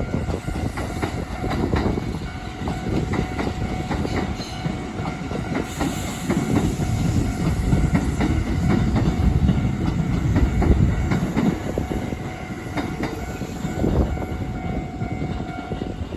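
Kintetsu electric train running over a level crossing, with a steady rumble and the wheels clattering over the rail joints.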